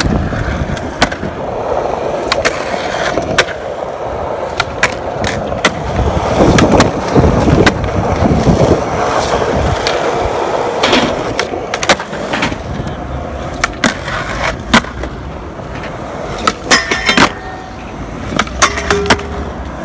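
Skateboard wheels rolling on concrete, broken by many sharp clacks and knocks of the board hitting the ground. The roll is loudest and roughest about six to nine seconds in.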